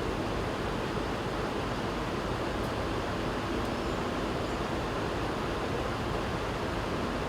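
Fast-moving floodwater rushing past, a steady even rushing noise.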